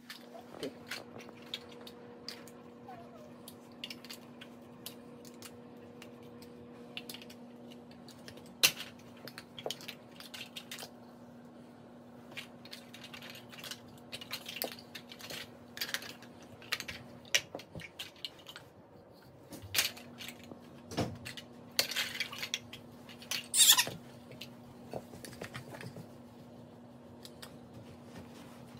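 Large plastic toy building blocks clicking and knocking as small children handle them, pull them apart and press them together, in scattered irregular clicks with a louder clatter about two-thirds of the way through.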